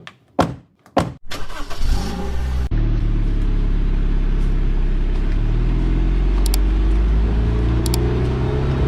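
A few sharp knocks, then a car engine starts and runs steadily, its pitch slowly rising.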